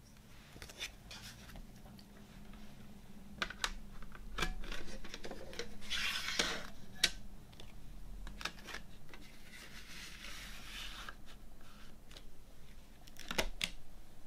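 Hands handling a CD jewel case and its paper booklet: rustling of the booklet, scattered sharp clicks of the plastic case, and near the end a quick cluster of clicks as the disc is pressed off the case's centre hub.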